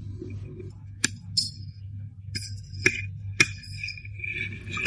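A series of sharp light clinks and taps, some ringing briefly, with a held ringing tone near the end, over a steady low hum.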